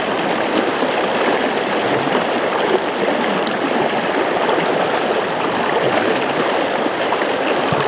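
Steady rushing of a fast river current, the river running high after a typhoon.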